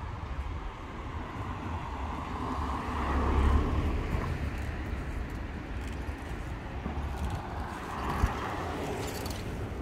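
Road traffic on a town street: vehicles passing, the loudest about three to four seconds in and another swell around eight seconds.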